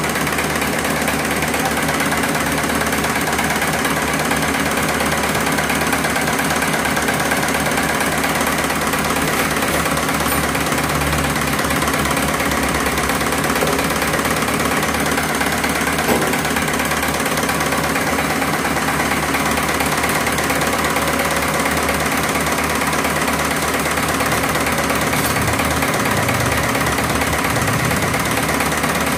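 Diesel injection pump test bench running steadily, driving a six-cylinder inline injection pump for a 6D16 engine during calibration.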